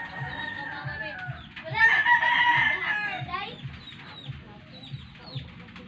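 A rooster crowing: a long held call about two seconds in is the loudest sound, with a fainter held call at the start and short falling calls after it. Faint low thumps recur about twice a second underneath.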